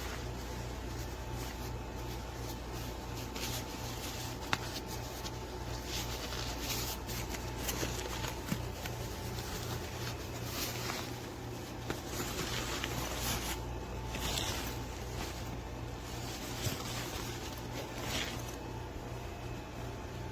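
Scattered rustling and light handling noises with a few sharp clicks, over a steady low hum.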